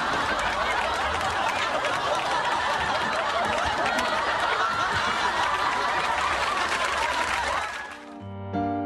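Sitcom studio audience laughing, a dense, loud wash of crowd laughter that cuts off sharply near the end, where electric piano music starts.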